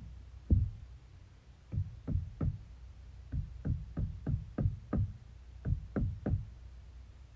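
A run of short, deep thumps, like kick drums or knocks: one on its own, then three groups of three, six and three, each beat about a third of a second apart.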